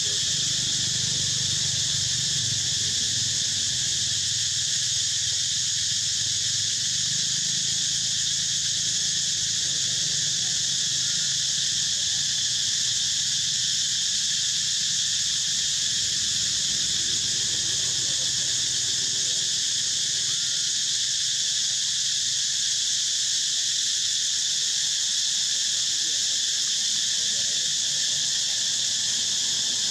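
Insect chorus droning steadily at several high pitches, with no let-up, and a faint low rumble under it in the first half.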